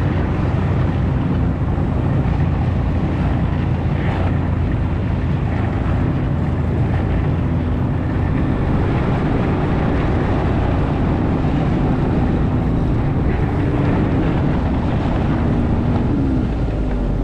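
Ski-Doo snowmobile engine running steadily, a low, even drone.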